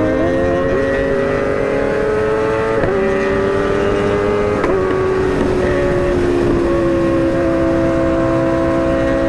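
Sport motorcycle engine running at high, nearly steady revs on the move, its pitch drifting slowly, with two short breaks about three and nearly five seconds in. Heavy low wind rumble runs under it.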